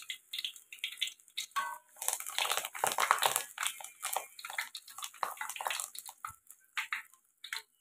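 Batter-coated young banana leaf deep-frying in hot oil in a wok over low heat, sizzling and crackling with quick pops, with occasional scrapes and taps of a metal spatula against the wok.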